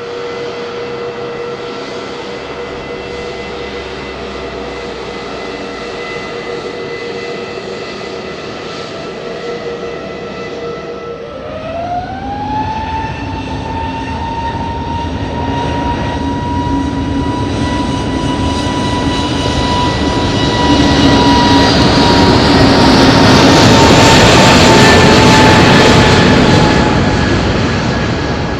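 Airbus A320neo's CFM LEAP-1A turbofan engines whining steadily, then spooling up about eleven seconds in with a sharply rising whine to takeoff thrust. The engine noise then builds as the jet rolls for takeoff, loudest in the last third, and eases near the end.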